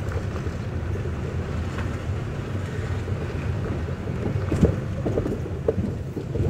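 Car driving slowly over an unpaved dirt road, heard from inside the cabin: a steady low rumble of engine and tyres, with a couple of light knocks past the middle.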